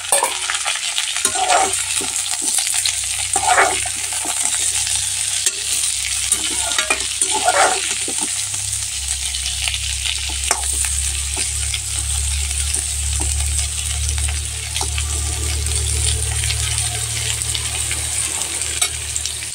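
Vegetables (pointed gourd, cauliflower, onion and fresh potato) frying in oil in a kadhai with a steady sizzle, and a spatula stirring them with short clicks against the pan. A low hum joins about halfway through.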